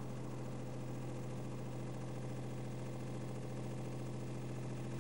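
An engine running steadily, with a constant low hum that does not change.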